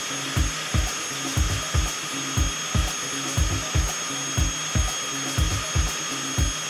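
Steady, high turbine whine from the ground run of the Folland Gnat and its air start unit, which supplies compressed air to spin the engine up to self-sustaining speed. Under it, a low thudding pulses about three times a second.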